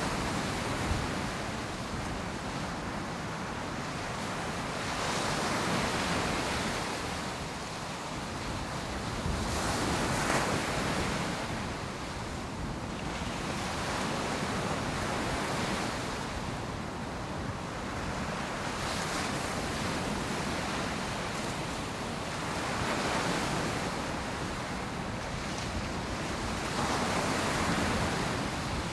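Atlantic surf breaking and washing up the beach, each wave swelling and fading every few seconds, with a low rumble of wind on the microphone underneath.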